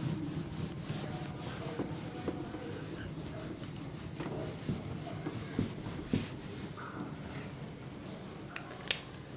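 A whiteboard eraser rubbing across a whiteboard, a faint scrubbing with small scuffs, and a sharp click near the end.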